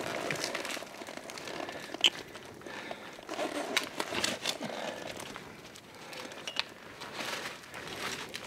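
Rustling and crinkling with scattered small clicks and knocks: the handling noise of a person moving while climbing.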